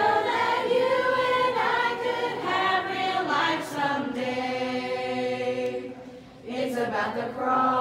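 Mixed teen choir singing a cappella in harmony, holding long chords. The voices drop briefly about six seconds in, then come back in together.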